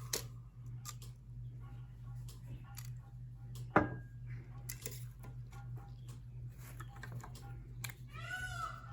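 Scattered light clicks and one sharp knock of metal parts being handled, about four seconds in, over a steady low hum. Near the end there is a short pitched animal call that rises and falls.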